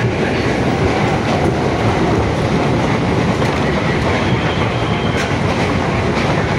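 Steady rumble and rattle of a moving electric commuter train's wheels on the rails, heard inside the passenger carriage, with a few faint clicks over the rail.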